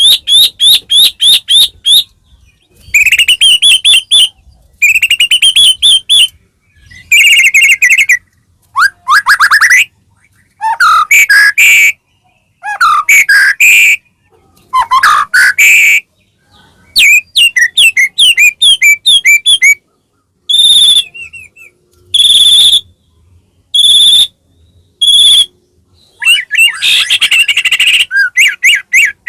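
White-rumped shama singing loud, varied song: fast runs of repeated notes and whistled slurs in phrases of a second or two, separated by short pauses.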